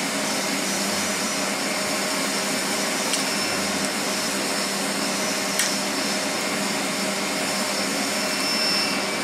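Steady whirring drone of a machine running in the shop, with an even hum under it. Two light clicks of a hand tool on metal parts inside the axle's differential, about three seconds and five and a half seconds in.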